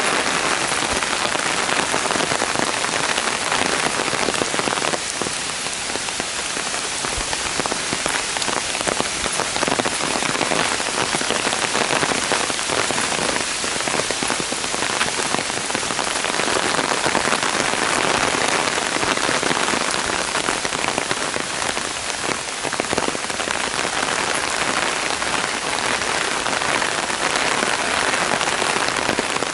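Heavy downpour falling on a paved path and the foliage around it: a dense, steady hiss made up of countless small drop strikes.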